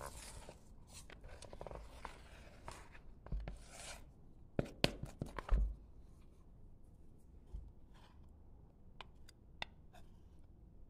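Wooden spoon stirring and scraping wet, sticky bread dough around a bowl, with a few sharp knocks about five seconds in and occasional light clicks later.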